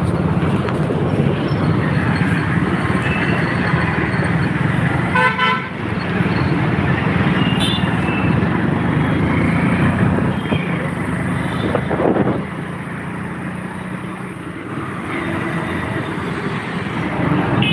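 Riding a motorcycle through busy city traffic: steady engine, road and wind noise, with vehicle horns honking. A horn sounds about five seconds in, with shorter toots near eight seconds and again at the end.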